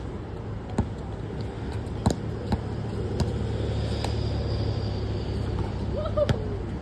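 Basketball bouncing on an outdoor concrete court: about half a dozen sharp dribbles at uneven spacing, over a steady low rumble.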